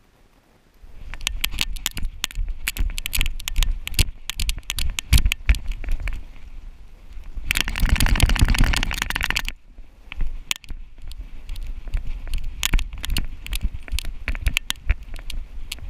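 A giant schnauzer runs with a GoPro strapped to its back on a harness, and the mount rattles and knocks with the dog's bounding footfalls. About seven seconds in, a dense burst of about two seconds comes as the dog shakes itself, its ears and coat flapping against the camera. Then the running knocks go on.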